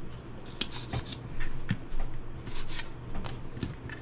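Chef's knife slicing through smoked sausage on a plastic cutting board: a run of short sawing cuts and taps on the board, about two a second.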